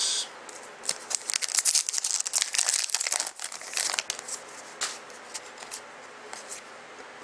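Trading card pack wrapper being crinkled and torn open: a dense run of sharp crackles for about three seconds, thinning to a few scattered crackles.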